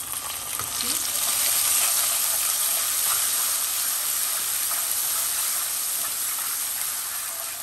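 Ginger-garlic paste hitting hot oil and browned onions in a frying pan: a sudden sizzle that swells over the first two seconds, then slowly dies down.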